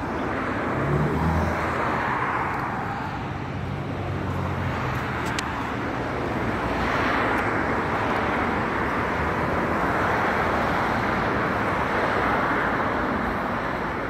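Road traffic noise: a steady rush of passing vehicles that slowly swells and fades, with a low engine hum from a vehicle in the first few seconds.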